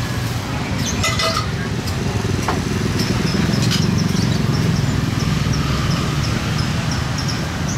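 Motor scooter engine running steadily as it rolls slowly along, a constant low rumble.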